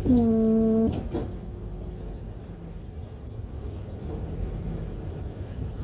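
A loud, steady buzzing tone lasting under a second at the start, then a click with a brief shorter buzz, over the low rumble of a tow truck's engine running inside the cab.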